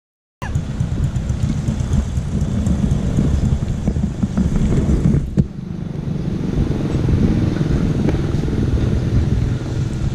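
A Kawasaki KLX150 dual-sport motorcycle's single-cylinder engine running while riding, cutting in abruptly about half a second in, with a brief dip in level a little past halfway.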